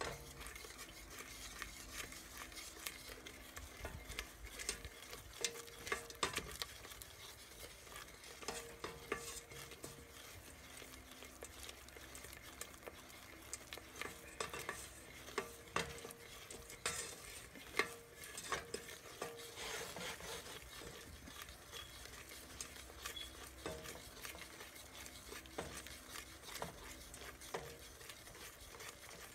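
Wooden spoon stirring and scraping around a stainless steel pot, with irregular light clicks against the metal, over a faint sizzle of butter and brown sugar melting into a syrup.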